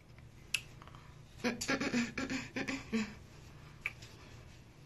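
A faint, low murmuring voice for about a second and a half in the middle, with a sharp click before it and another after it.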